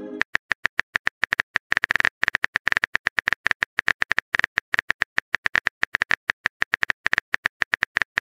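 Rapid smartphone keyboard tap clicks, the sound effect of a text message being typed: many short clicks at an uneven pace, several a second, with a brief pause about two seconds in.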